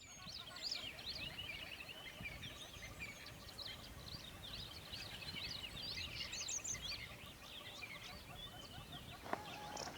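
Many birds chirping and twittering together in a dense, continuous chorus of short high chirps.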